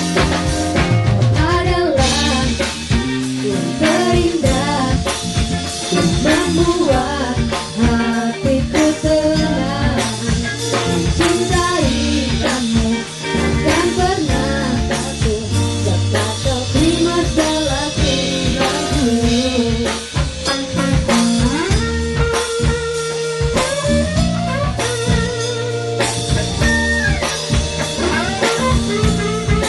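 Live band music with a drum kit and electric guitar, and a woman singing into a microphone for part of it.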